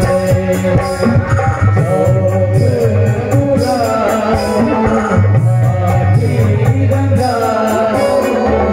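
Live Indian folk song with a male singer, tabla and dholak drumming a steady rhythm under the wavering sung melody.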